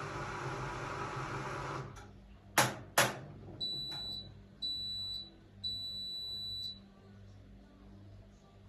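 A Hotpoint-Ariston RSG 825 J washing machine's running noise cuts off about two seconds in. Two sharp clicks follow, then three high beeps, the last one longer: the machine's end-of-cycle signal.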